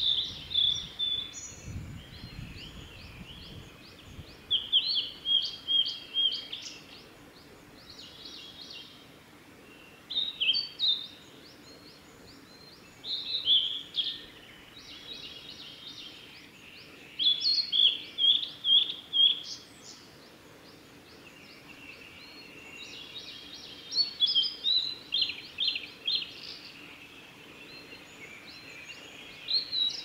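Male blue-and-white flycatcher singing: about eight short phrases of high whistled notes, each ending in a rapid run of notes, spaced a few seconds apart.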